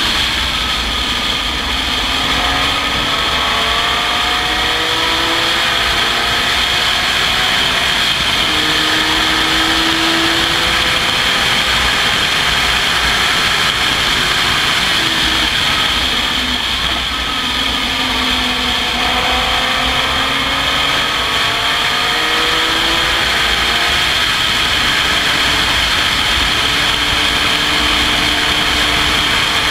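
Race car engine heard onboard an open-cockpit sports racer at speed, its pitch climbing and dropping back in steps as it shifts up through the gears, easing off around the middle, then pulling up through the gears again. Heavy wind rush on the microphone from the open cockpit.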